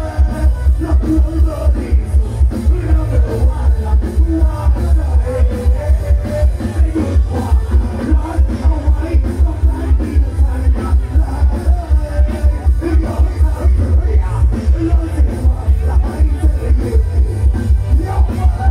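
Live band playing loud dance music through a sound-truck PA, with singing over a heavy, steady bass beat.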